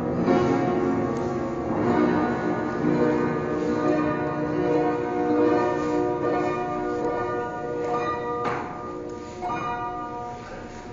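Long-unplayed upright piano being played: sustained, bell-like chords and notes ringing out, the playing thinning and fading toward the end with a few last notes struck.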